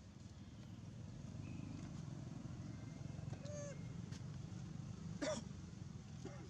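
A few short, high squeaks from a macaque monkey, the loudest about five seconds in, over a steady low rumble.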